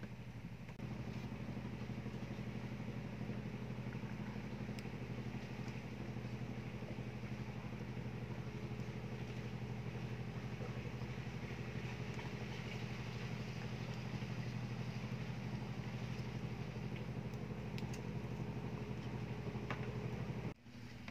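An engine running steadily at low revs with an even, unchanging pitch. It cuts off abruptly near the end.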